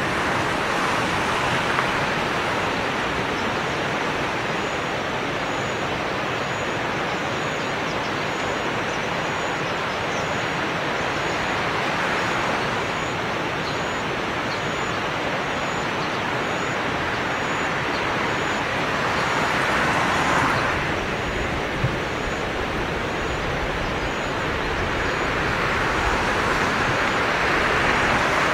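Steady rushing of the Nagara River's flowing water, swelling a little now and then. A faint, evenly repeating high chirp sounds above it through the middle of the stretch.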